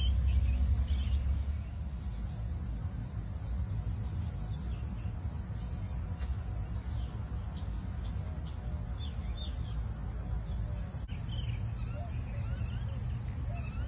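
Outdoor ambience: birds chirping now and then over a steady high insect buzz, with a low rumble that is loudest in the first second or so.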